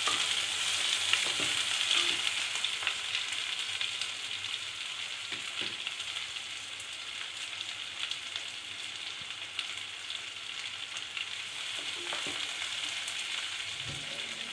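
Chopped onion sizzling in hot oil with mustard seeds and dals in a stainless steel pot, stirred now and then with a wooden spatula. The sizzle is loudest in the first couple of seconds after the onion goes in, then eases slightly and stays steady.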